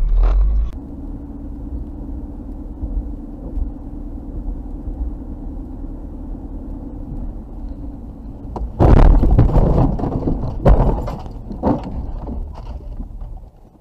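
Steady road and engine hum inside a car on a snowy highway. About nine seconds in comes a sudden loud run of thumps and scraping as the car runs off the road into snow-covered brush. It dies away over the next few seconds.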